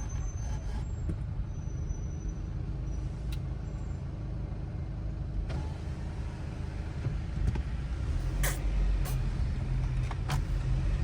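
Car driving, heard from inside the cabin: a steady low engine and road rumble, with a few short clicks in the second half.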